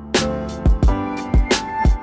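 Background music with a steady drum beat over sustained pitched notes.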